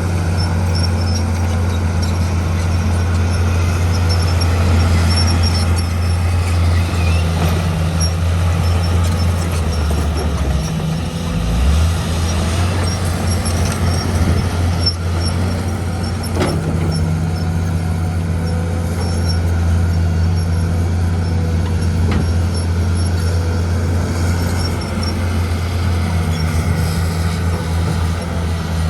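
Heavy diesel engine of construction machinery running steadily under work, its pitch dipping briefly about eleven seconds in, with a few faint knocks.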